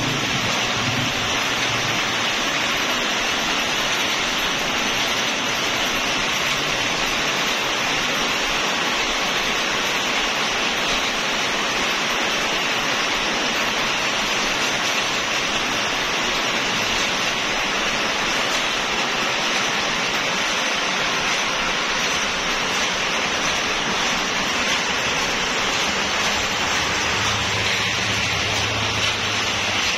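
Steady, even noise of rope-workshop machinery running, including a belt-driven electric winding reel spinning cotton charpai rope into hanks, with no rhythm or clear pitch to it.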